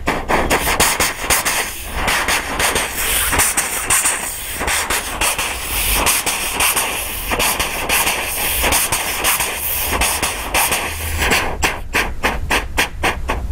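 Vocal mimicry of a train crossing a metal bridge, made with the mouth into a cupped microphone from 'ṭha' and 'pha' syllables. A fast rhythmic metallic clatter gives way to a long steady hiss like escaping steam through the middle, and the clatter returns near the end.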